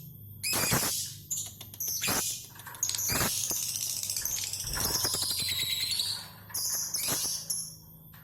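Lovebirds chattering in shrill, scratchy bursts. The chatter runs almost unbroken through the middle in a long ngekek-style run, with a faint steady hum underneath.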